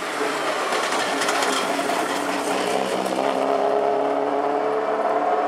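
Subaru Impreza WRC rally car's turbocharged flat-four engine under power on a closed street stage, with a few sharp cracks about a second in. The engine then settles into a clear, steady note that climbs slightly as the car pulls away.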